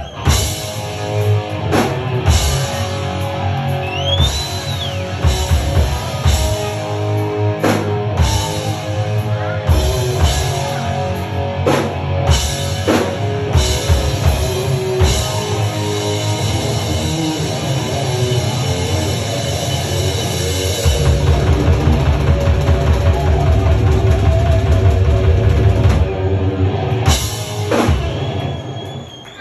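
Live rock band, drum kit with electric guitar, playing loud. About two-thirds of the way through, a fast, steady bass-drum pattern comes in. After a last hit near the end, the music dies away.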